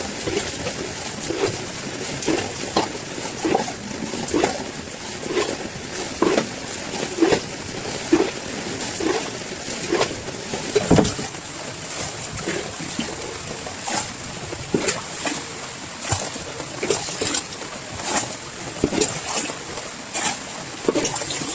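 Steady rain with water splashing and plopping irregularly, about once or twice a second.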